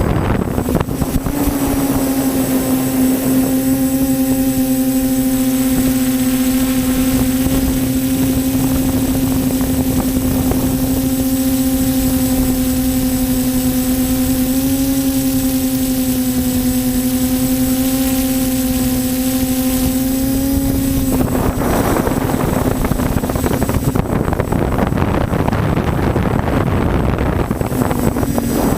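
TBS Discovery quadcopter's electric motors and propellers running with a steady, even-pitched whine. About three-quarters of the way through, the whine gives way to a rushing noise for several seconds, and it returns near the end.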